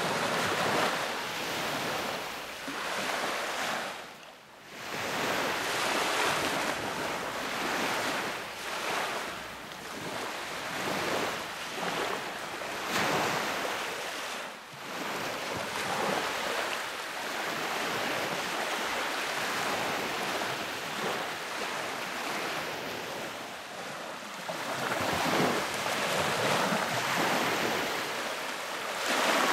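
Sea waves washing onto a beach in a continuous hiss that swells and eases, with two brief lulls, and wind in the background.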